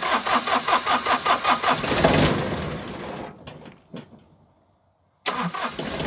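Kubota D1005 three-cylinder diesel engine being started with the key: the starter cranks it with an even chug for about two seconds, it briefly fires and then runs down without catching. After a short pause it cranks again near the end, just before it catches.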